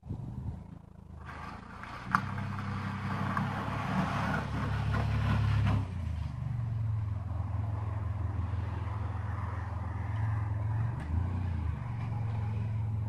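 2001 Dodge Caravan minivan's engine running as it drives slowly, pushing snow with a plywood plow mounted on its rear, growing louder as it comes close about a second in. From about two to six seconds in there is a scraping hiss of snow being pushed over the engine hum, then a steady engine hum.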